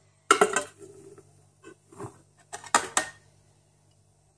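Flour poured from a plastic container into the stainless steel bowl of a Monsieur Cuisine Plus food processor, with a few short clatters and knocks of the container against the metal bowl.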